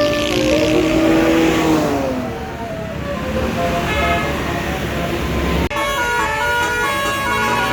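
Bus basuri telolet horn playing a melodic tune of stepping notes over low engine rumble; the notes slide downward about two seconds in. A sudden break just before six seconds, then more horn notes.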